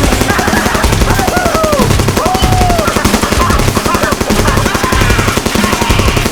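Rapid, continuous automatic gunfire with a fast rattle of shots, overlaid by a few short shouts that rise and fall in pitch.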